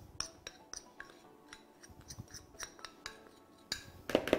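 Metal spoon scraping and tapping against a ceramic plate as powdered sugar is knocked off it into a plastic mixing bowl: a string of light clinks and scrapes, with a louder clatter near the end.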